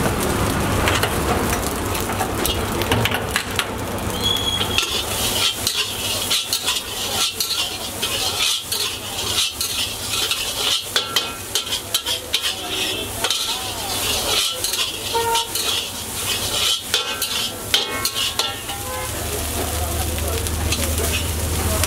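Fried rice sizzling in a hot wok while a steel ladle stirs, tosses and scrapes it, with quick irregular clinks and scrapes of metal on the wok. The scraping stops shortly before the end, leaving a steady low hum.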